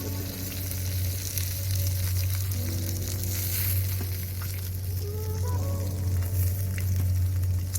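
Fish frying in hot oil in a pan, a steady sizzle, over a low steady hum.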